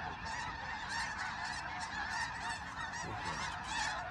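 A large flock of snow geese calling all at once: a dense, unbroken din of many overlapping high honks.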